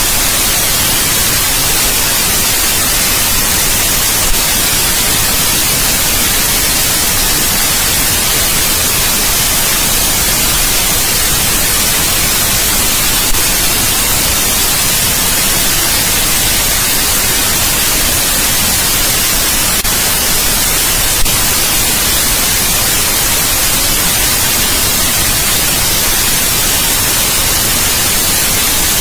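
Steady, even white noise hiss with no tones or rhythm, brightest in the high end. A few tiny clicks break it.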